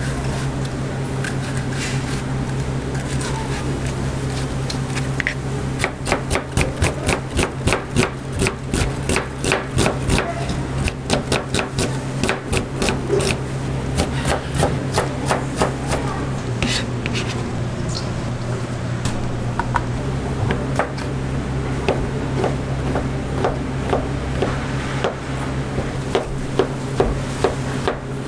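Kitchen knife chopping onion and then mushrooms on a plastic cutting board. About six seconds in there is a quick, even run of blade strikes lasting about ten seconds, followed by sparser, uneven chops.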